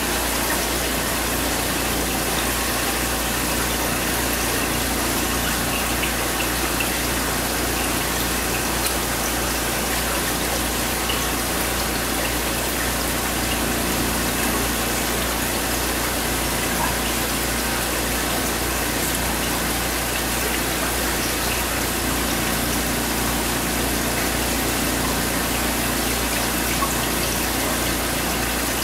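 Steady hum and rush of hatchery tank equipment: water pumps running and water flowing, with a constant low drone beneath.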